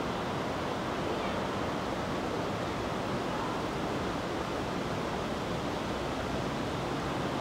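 Steady, even rushing outdoor noise with no distinct events in it.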